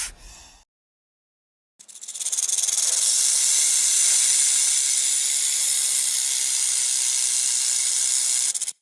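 A long, steady hissing sound effect like escaping steam, starting about two seconds in and cutting off abruptly near the end.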